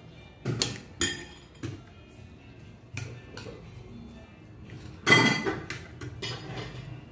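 Spoon and fork clinking and scraping against a plate while eating rice: a handful of sharp clinks, the loudest about five seconds in.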